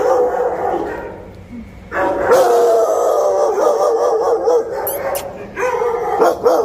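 Several kenneled dogs howling and barking together in long, wavering, overlapping calls, with a brief lull about a second in.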